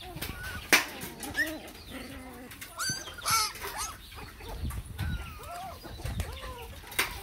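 A litter of young puppies whimpering and squeaking in many short rising-and-falling cries, with two sharp clicks, one near the start and one near the end.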